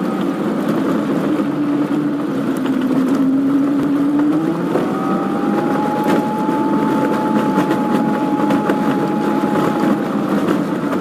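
Daihatsu Feroza's engine running and tyre noise on a rough road, heard from inside the cabin while driving. The engine note rises a little about halfway through, then holds steady.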